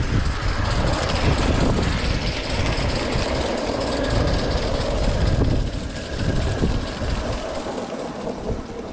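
A Gauge 1 (1/32 scale) model locomotive running on garden railway track, its sound swelling in the middle of the stretch, over a steady hiss. Wind rumbles on the microphone throughout.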